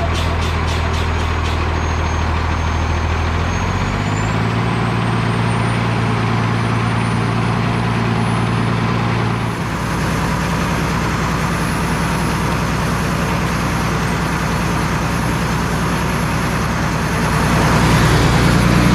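Diesel truck engine idling under a steady hiss of compressed air, as air is bled from the truck's air system to fill a steer tire and make the air compressor cut in. The engine note steps up about four seconds in and changes again with a brief dip about halfway through.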